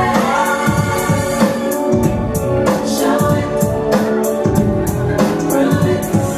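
Loud pop song with sung vocals and a steady drum beat, played through a nightclub sound system.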